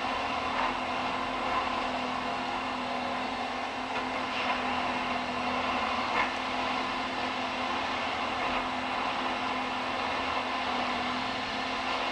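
Diesel engine of a yellow railway track maintenance machine running steadily as the machine creeps along the track, with a constant low hum and a few faint clunks.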